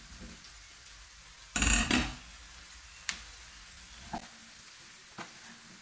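A hand peeler scraping the tough, knobbly rind off a kabocha squash: one longer scraping stroke about a second and a half in, then three short clicks about a second apart.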